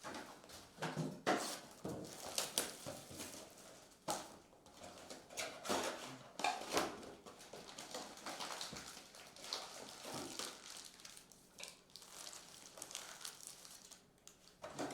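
Rustling and crinkling of trading card packs and packaging being handled and opened, with scattered taps and clicks.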